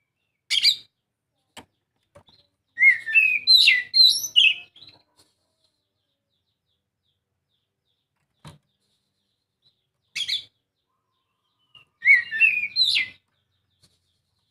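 Oriental magpie-robin singing: a sharp short call, then a varied phrase of rich, gliding whistles lasting about two seconds, another short call, and a second whistled phrase near the end, with silent gaps between.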